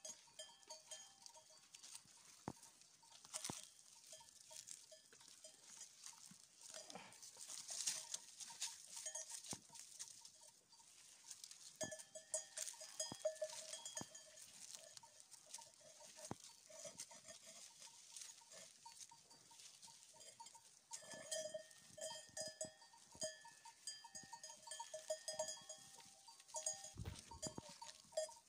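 Bells on a grazing flock of sheep clanking on and off as the animals move and feed, with faint clicks of hooves and cropping.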